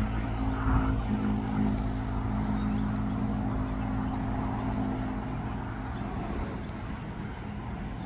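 Steady low engine hum, slowly fading, with a few faint high chirps now and then.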